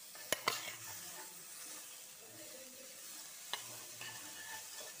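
Onion, tomato and grated coconut sizzling in oil in a stainless steel kadai while a metal spoon stirs them, with a few sharp clinks of spoon on pan: two just after the start and one about three and a half seconds in.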